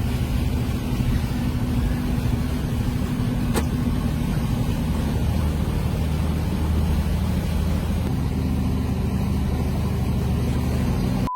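Motor vehicle engine running steadily, a constant low hum with a few held engine tones.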